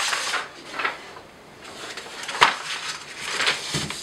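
A sheet of paper rustling as it is spread out on a workbench, and a wooden cut-out set down on it with one sharp knock about two and a half seconds in, followed by light handling.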